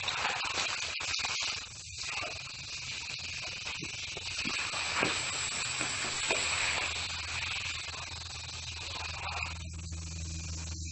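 Steady hissing noise with a few brief cutouts and a low hum that comes up about halfway through.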